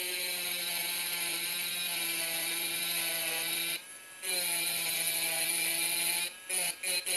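Electric rotary engraving tool with a diamond tip grinding into glass: a steady high whine with a gritty hiss over it. The sound breaks off briefly just before halfway and twice near the end.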